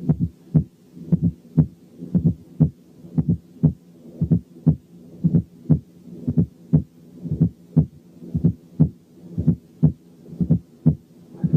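Recorded heart sounds heard through a stethoscope's bell at the cardiac apex: sharp, regular beats about twice a second, with a low murmur filling the gaps between them.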